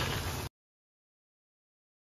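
Steady rain hiss that cuts off abruptly about half a second in, leaving dead silence.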